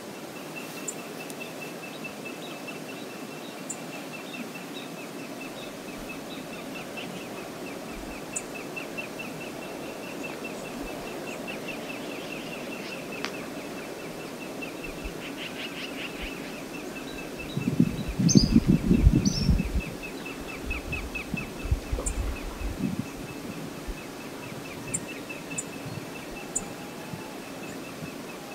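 Steady rush of river water, with a rapid, high-pitched ticking chirp running through most of it. A loud low rumble breaks in about two-thirds of the way through and comes back more weakly a few seconds later.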